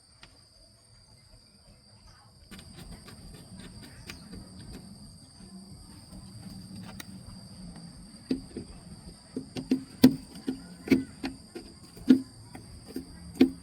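Insects trilling steadily throughout, with a low hum starting about two and a half seconds in. From about eight seconds in there is a series of irregular knocks, the loudest sounds here.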